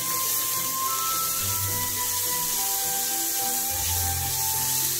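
Background music with held notes, over chopped onion sizzling in hot oil as it is stirred with a silicone spatula.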